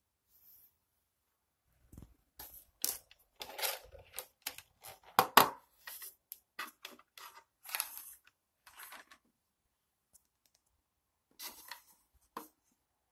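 Irregular handling noise as the plastic-cased electric wall clock is moved about on a stone countertop: short rustles, scrapes and clicks, with one sharper knock about five seconds in.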